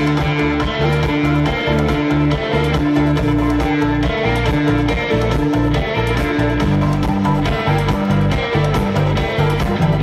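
Live rock band playing an instrumental passage: electric and acoustic guitars over bass and drums, with a steady beat and repeating guitar notes.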